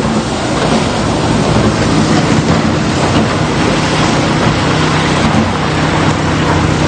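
A vehicle engine humming steadily under a loud, even rush of wind or road noise.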